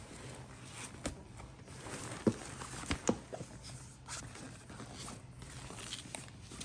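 Rustling and handling noises of bag contents being packed, with a few sharp clicks or taps, the loudest about two and three seconds in, over a low steady hum.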